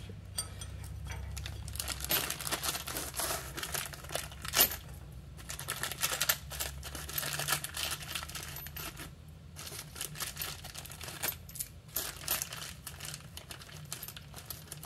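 Light metal clinks, clicks and scrapes as a bicycle sprocket and its mounting pieces are handled and fitted onto a rear wheel hub: irregular, with a sharper knock about four and a half seconds in.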